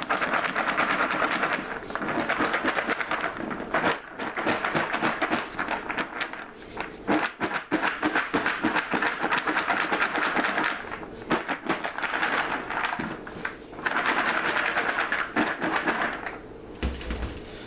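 Coated Chex rice cereal rattling and swishing inside a plastic bowl being shaken hard, in several long bouts with short pauses between them. This is the last tossing of the puppy chow to coat it in powdered sugar.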